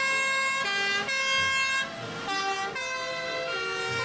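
Two-tone sirens of several fire engines on emergency runs, each stepping between a high and a low pitch about every half second, the sirens overlapping out of step with one another.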